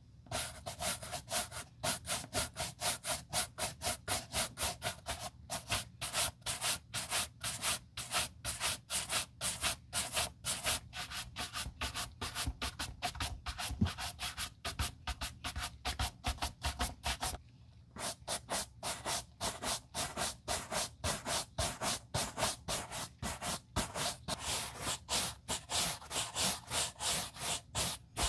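Horsehair shoe brush buffing the smooth leather upper of a loafer in quick back-and-forth strokes, about three or four a second, with a short pause partway through.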